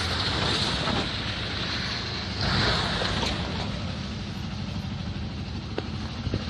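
Road traffic inside a long road tunnel: a steady noise of engines and tyres, with a louder rush about two and a half seconds in as a vehicle goes by.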